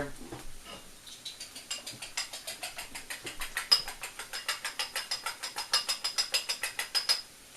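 Fork beating raw eggs in a bowl: fast, even clicking, about six strokes a second, that stops shortly before the end.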